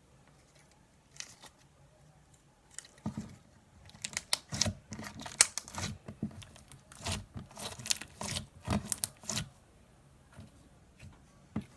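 Thick butter slime being squished, stretched and poked in the hands close to the microphone, giving an irregular run of small crackles, pops and squelches, busiest in the middle and dying away near the end.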